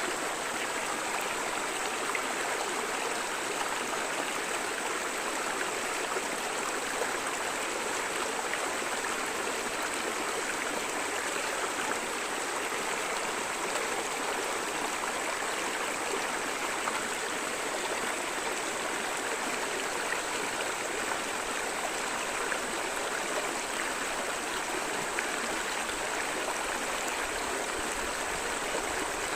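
River water flowing steadily over stones: an even rushing and babbling with no birds.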